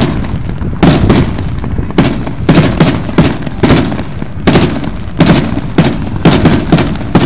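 Aerial fireworks shells going off in quick succession during a public display, heard from about 250 yards: a steady run of sharp bangs, about two to three a second, each trailing off in a low rumble.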